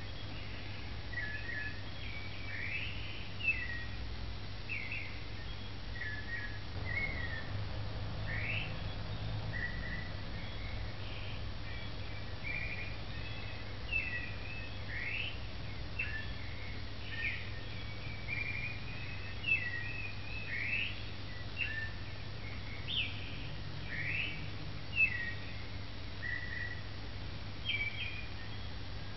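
Birds chirping and singing: a run of short whistled notes, some sweeping upward, over a steady low hum.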